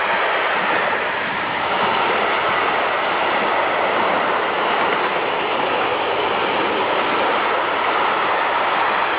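A train passing close by, its wheels on the rails making a steady, loud rushing noise.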